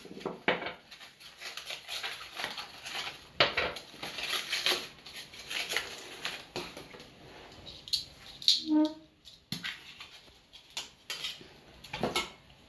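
Small tuna cans handled out of a cardboard multipack sleeve and set on a wooden cutting board: irregular rustling of cardboard with light metal clicks and knocks of the cans. A brief hum-like tone sounds about two-thirds of the way through.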